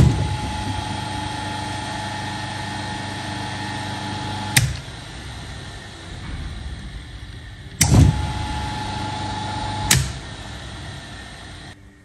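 ABB three-phase induction motor switched on through a contactor with a loud clack, running with a steady electric hum and whine. It is switched off with a click about four and a half seconds in and winds down. It is started again with a clack about 8 s in, stopped with a click near 10 s, and winds down once more.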